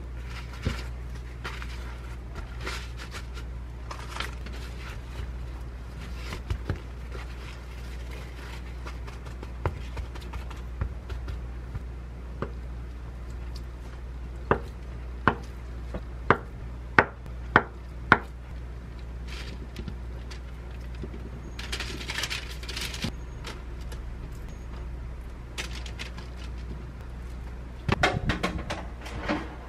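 A kitchen knife cuts a block of tofu on a wooden cutting board: soft handling sounds, then about half a dozen sharp knocks of the blade on the board. Near the end, a wire air-fryer basket is slid into a countertop air fryer oven with a short metallic clatter.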